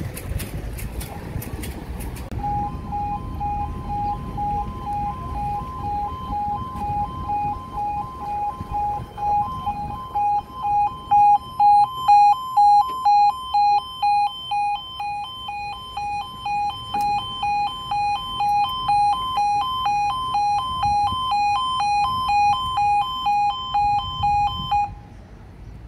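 Level crossing warning alarm (the British two-tone 'yodalarm') sounding as the crossing closes. It warbles steadily between two pitches, starts about two seconds in and cuts off suddenly near the end.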